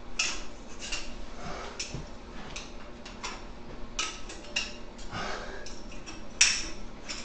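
Irregular light metallic clicks and taps: thin metal shims and a drill bit being worked under a Farmall MD's front motor mount, with the shims slid into place and lined up. One sharper clink comes near the end.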